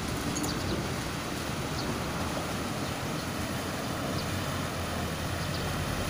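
An SUV's engine running steadily as it drives slowly through deep, muddy floodwater, its tyres pushing and sloshing the water.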